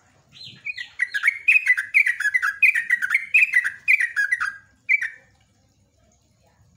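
Caged yellow-vented bulbul singing a fast, continuous run of chattering notes, each dropping in pitch, about four a second, for about four seconds. One last note comes after a brief gap, then the song stops.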